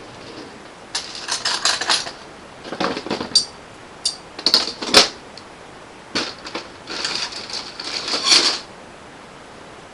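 Clattering and rattling of objects being handled, in four bursts with short pauses between, the loudest near the end.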